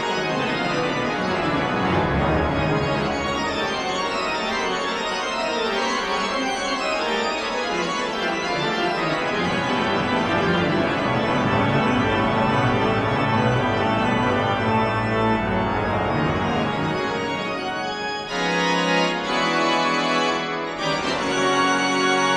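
Danion-Dargassies pipe organ playing loud, with dense rapid passagework. Near the end it turns to held full chords, broken twice by short gaps.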